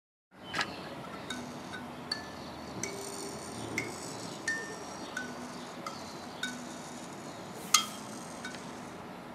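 Kalimba (thumb piano) with metal tines on a bowl-shaped resonator, plucked one note at a time: about a dozen slow, irregularly spaced single notes that each ring briefly. One sharp, louder click comes near the end.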